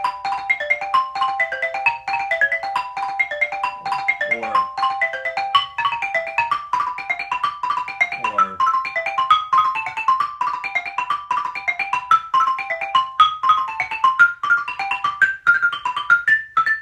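Xylophone played with mallets: a fast, even run of single struck notes in repeating arpeggio figures built from chord tones, shifting from chord to chord, with the line climbing higher near the end.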